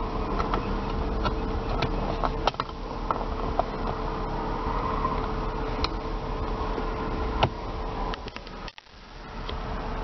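Idling BMW inline-six and climate-control fan heard from inside the cabin as a steady hum, with a few light clicks from the console controls being handled. The sound drops out briefly near the end.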